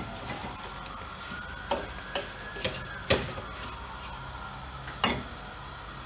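Semolina toasting in butter in a stainless steel frying pan, sizzling softly as it is stirred. The stirring utensil scrapes and knocks against the pan about half a dozen times.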